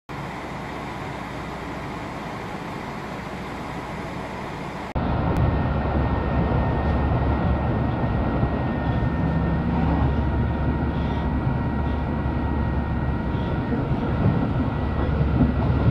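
A red regional passenger train moving alongside a station platform, a steady rushing noise. About five seconds in it cuts to the louder, steady low rumble of a train running at speed, heard from inside the carriage, with a faint steady high whine and a few light ticks.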